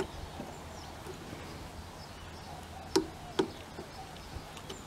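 Click-type torque wrench set to 15 foot-pounds clicking twice in quick succession, about three seconds in, on a cylinder head nut. It releases at once, showing the nut was already at close to the set torque.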